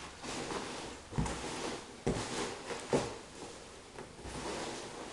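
Large cardboard box being handled and rummaged through: its flaps and packing rustle and scrape, with three dull knocks about a second apart near the middle.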